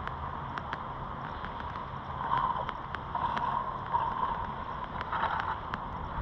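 Wind on the microphone, a steady low rumble, with faint scattered ticks.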